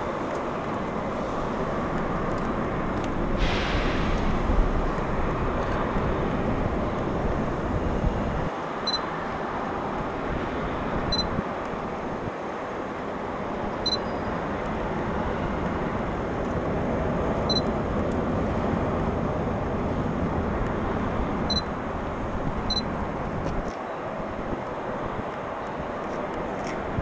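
Steady outdoor ambience at an elevated railway station: a wash of noise with gusts of wind on the microphone, and six short, faint high beeps spread through the middle.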